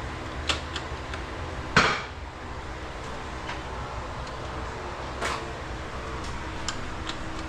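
Metal hand tools clinking and knocking on metal during work on a motorcycle's shifter bolts: a few sharp clinks, the loudest just under two seconds in and another about five seconds in, over a steady low hum.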